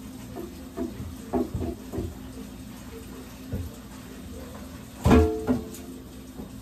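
Water running from a kitchen tap into the sink while a pot is scrubbed and rinsed, the pot knocking against the sink now and then. About five seconds in there is a louder metallic clang that rings briefly.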